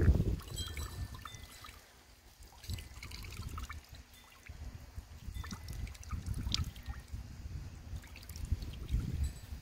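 Rice horchata trickling and dripping from a hand-squeezed cloth strainer bag into a plastic bucket. A low rumble comes and goes under it, quieter for a couple of seconds near the start.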